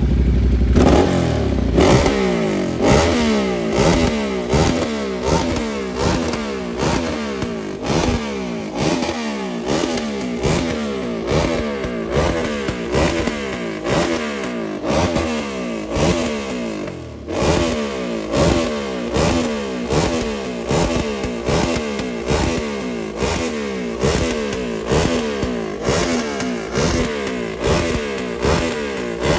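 Sport motorcycle engine idling briefly, then revved hard in quick repeated throttle blips, about one a second, each rev climbing in pitch and dropping back.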